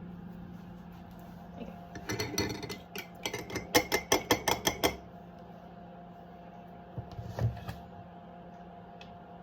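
Kitchen utensils clinking against dishes: a run of quick taps, about five a second, for about three seconds, then a couple of knocks a few seconds later. A steady low hum runs underneath.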